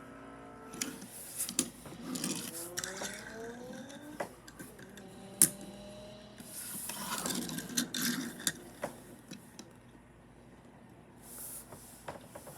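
Engine-revving sounds that rise in pitch several times, mixed with sharp clicks and knocks.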